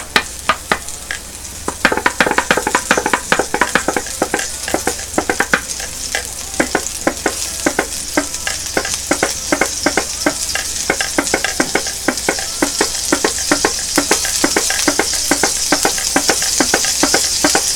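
Sesame oil heating in a pot, sizzling with a high hiss and many sharp, irregular crackles and pops that grow louder toward the end; the oil is hot enough that it seems to be starting to scorch.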